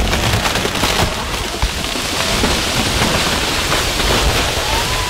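A large tree coming down as its trunk splits: a dense rushing of leaves and branches with scattered cracks of splitting wood.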